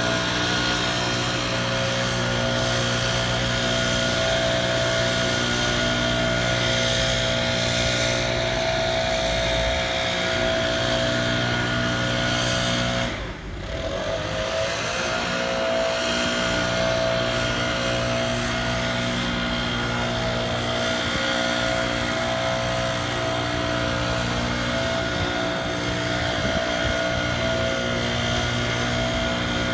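Engines running steadily, a constant droning hum. It cuts out abruptly for about a second some 13 seconds in, then carries on unchanged.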